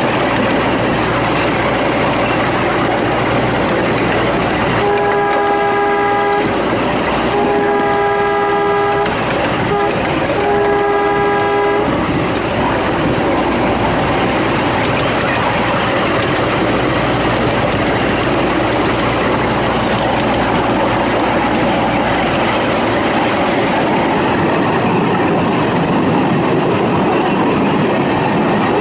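Small-scale live-steam train running, its passenger cars' wheels rumbling and clattering along the rails. About five seconds in, the locomotive's steam whistle sounds two long blasts, a brief one and a final long one, the pattern of a grade-crossing signal.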